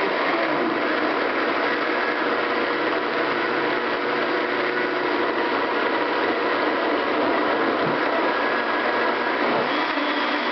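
Blendtec blender motor running steadily, puréeing steamed cauliflower with cottage cheese and a little water into a smooth whip.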